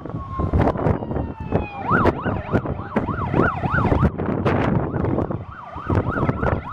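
Emergency-vehicle siren: a tone falling slowly at first, then from about two seconds in a fast up-and-down warble, with wind buffeting the microphone.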